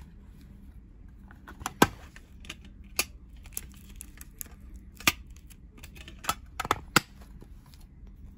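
A small metal souvenir tin being handled and opened by hand, its lid clicking and clacking against the tin, in a string of sharp separate clicks. The loudest come about two seconds in and again near seven seconds.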